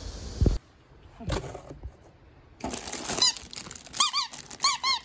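Squeaky dog toy squeezed again and again, mostly in quick pairs, each squeak a short rise-and-fall whistle, starting a little past halfway. Its plastic wrapping rustles along with it.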